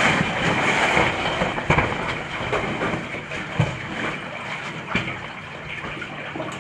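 Rustling and scraping of a caver's suit and PVC tackle bag rubbing against rock while squeezing through a narrow passage, louder at first and then fading, with a few dull knocks.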